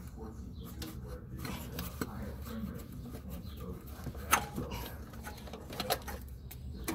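Faint handling noises from a gloved hand working the plastic brake pad wear sensor plug and its wire loose, with a couple of sharp clicks, the loudest about four seconds in, over a low steady hum.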